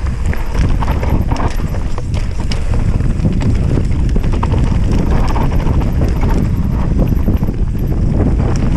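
Enduro mountain bike rolling fast down a rough dirt trail: tyres crunching over dry dirt and stones, with frame, chain and suspension rattling in quick knocks over the bumps on top of a steady low rumble.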